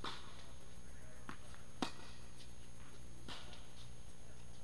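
Tennis rally: four sharp ball strikes and bounces, one every second or so, the loudest a crisp racquet hit a little under two seconds in, over a steady low hum.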